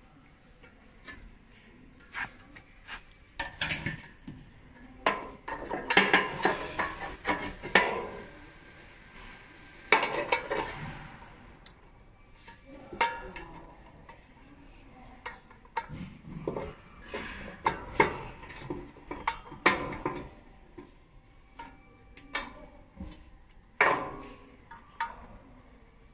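Metal parts and hand tools clinking and knocking irregularly during hands-on disassembly work, busiest a few seconds in, with a brief scraping rush of noise about ten seconds in.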